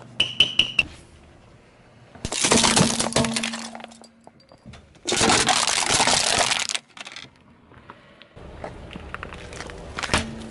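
A squeaky plastic toy hammer squeaks with a few quick strikes. Then a car tyre crushes objects: a long crackling crunch, and a second loud, steady burst as an aluminium soda can is flattened under the tyre. A low rumble with a few ticks follows.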